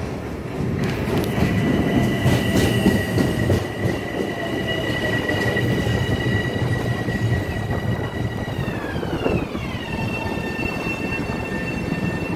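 Long Island Rail Road M7 electric train running through the station, its wheels rumbling on the rails under a high steady whine that drops in pitch about nine seconds in.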